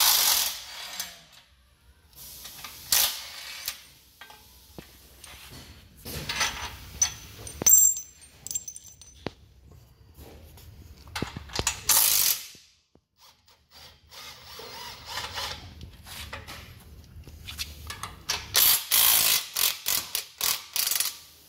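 Red Snap-on cordless ratchet run in a quick string of short bursts near the end, turning a nut on the tie rod at the steering rack. Earlier, scattered metallic clanks and knocks from handling the parts.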